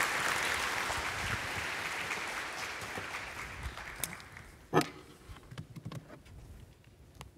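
Audience applause dying away over the first four seconds or so. About five seconds in comes a single sharp knock, followed by a few faint scattered noises.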